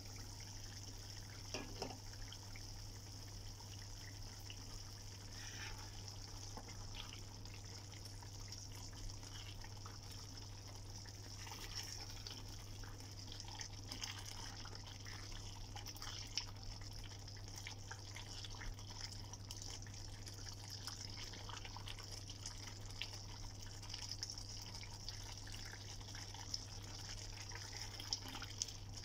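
Thick paneer tikka masala gravy bubbling in an open pan, with scattered small pops and the scrape of a spatula stirring through it. A low steady hum runs underneath.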